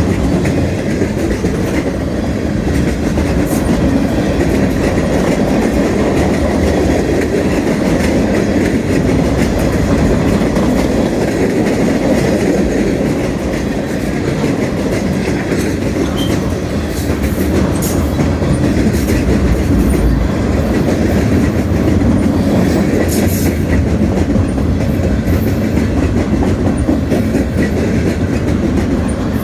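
Freight train cars rolling past, a steady loud running noise with the wheels clicking over the rail joints. There is no horn in this stretch.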